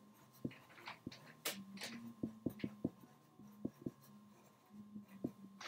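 Wooden pencil writing on paper: a quick, irregular run of short scratching strokes and light ticks as letters and lines are drawn.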